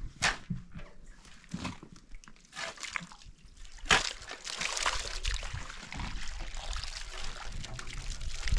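Water sloshing and splashing. There are a few sharp knocks in the first seconds, then a steady splashing hiss from about four seconds in.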